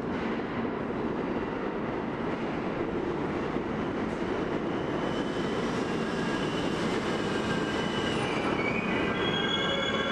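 New York City subway train running into the station with a steady rumble. High metallic wheel squeals set in about halfway through and grow stronger near the end as the train comes along the platform.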